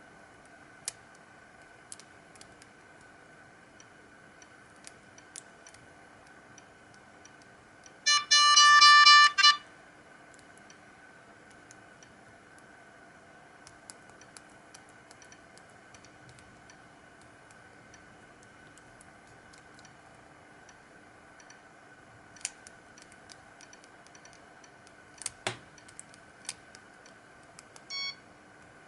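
Keypad of a Siemens CL50 mobile phone clicking now and then as buttons are pressed. About eight seconds in, a short electronic tone sounds for about a second and a half, and one short key beep comes near the end.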